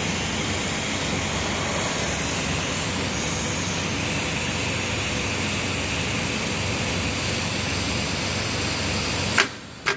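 Steady rushing noise, even and unchanging, that cuts off abruptly near the end with two sharp clicks.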